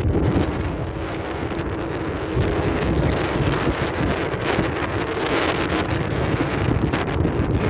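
Strong wind buffeting the microphone, with the steel pipes of the Singing Ringing Tree wind sculpture faintly sounding low steady tones through the gusts.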